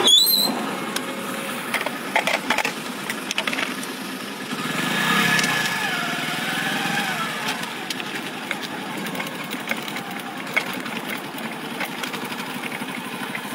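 Steady vehicle engine and road noise, with scattered clicks and knocks from the phone being handled. The noise swells for a couple of seconds around the middle.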